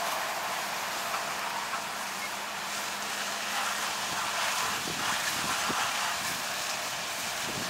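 Steady hiss of water spray and steam as a burning truck is doused with a fire hose.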